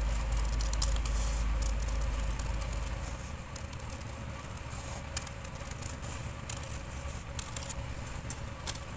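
Tailoring shears snipping through folded paper, a run of short crisp cuts with paper rustling as the neck pattern is cut out. A low rumble runs underneath and fades about three seconds in.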